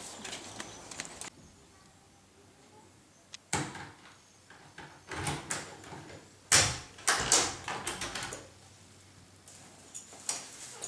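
A wooden front door being unlocked and opened from outside: a run of sharp clicks and knocks from the lock and latch, loudest about six and a half seconds in, in a quiet room.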